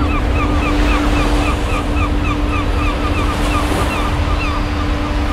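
Churning, rushing water of a ship's wake, with a steady hum underneath and a quick repeated chirping, about four a second, that fades out about three seconds in.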